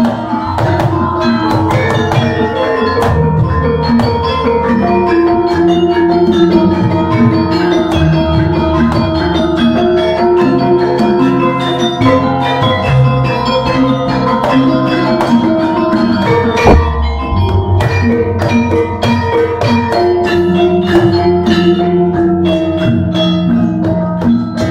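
Javanese gamelan ensemble playing: bronze metallophones and kettle gongs struck in dense, interlocking patterns over hand-played kendhang drums.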